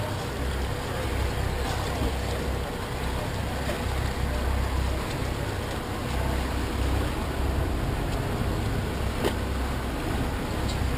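Speedboat engine running steadily, a low rumble under an even hiss of wind and water rushing past the hull.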